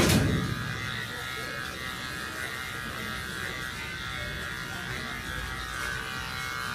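Cordless electric pet hair clipper running with a steady buzz as it is worked through a Persian cat's fur. A short knock sounds right at the start.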